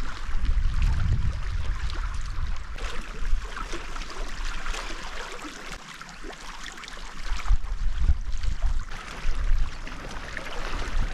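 Outdoor lakeshore ambience: small waves lapping against shore rocks, with gusty wind rumbling on the microphone that eases off midway and picks up again near the end.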